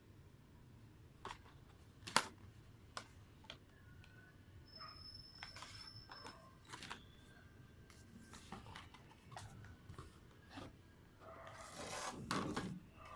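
Faint handling of album packaging and contents: scattered light taps and clicks, then a longer rustle near the end.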